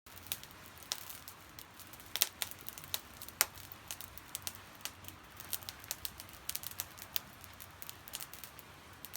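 Fire in a fire pit crackling, with irregular sharp pops several times a second; the loudest snaps come a little after two seconds in and about three and a half seconds in.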